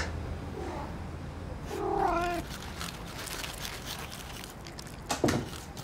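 A cat meows once, a short call that bends in pitch, about two seconds in. It is followed by a run of dry crackling crunches from spilled cornflakes.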